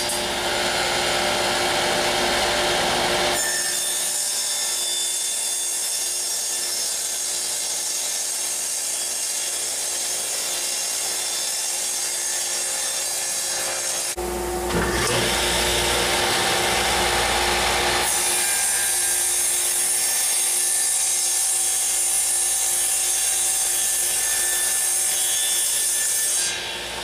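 Table saw running and cutting through plywood, a loud steady saw noise that changes abruptly a few times as one cut gives way to the next.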